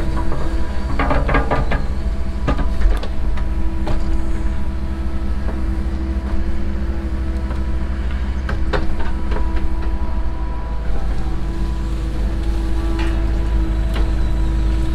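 Cat 307 excavator's diesel engine running steadily under working load. Several sharp clatters of stone and gravel from the bucket come through, most of them in the first few seconds.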